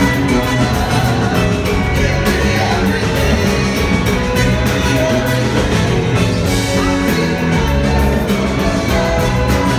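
Loud live rock band playing: a lead singer's voice over electric guitar, bass and keyboards, running without a break.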